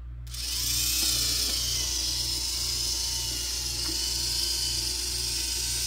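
A restored 1960 Cadillac Fleetwood power antenna's electric motor and gear drive switch on just after the start and run with a steady whine, driving the three-section telescopic mast out to full extension. A faint regular pulse, about twice a second, runs under the whine.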